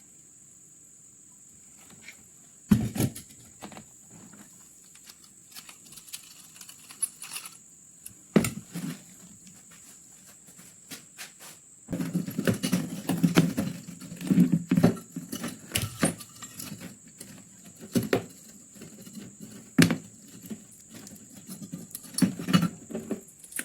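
Hand work on metal gun parts: scattered sharp knocks and clinks, then from about halfway a stretch of rapid clattering and rubbing, over a faint steady high whine.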